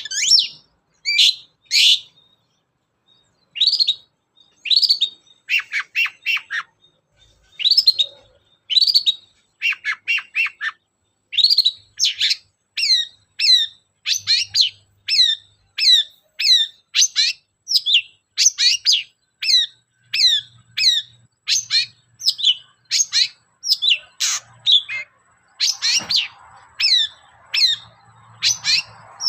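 Long-tailed shrike (cendet) singing a long series of short, sharp, downward-slurred chirps, spaced out at first and then coming steadily about two a second.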